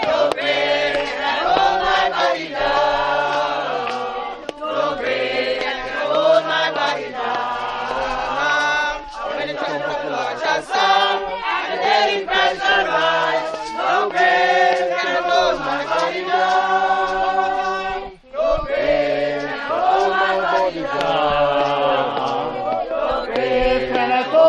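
A group of people singing a gospel hymn together, with many voices on long held notes.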